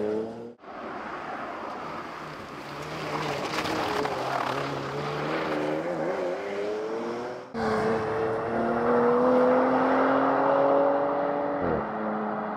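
Porsche Macan GTS's twin-turbo V6 running under hard acceleration, its exhaust note climbing in pitch over road and tyre noise. The sound breaks off abruptly twice. The note rises steadily through the second half, then drops sharply near the end.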